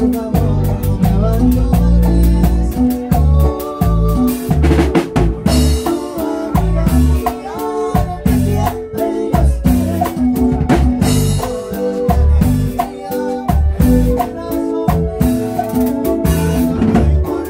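A live Latin band playing, with a drum kit keeping a steady beat of snare and bass-drum strokes under keyboards and guitars.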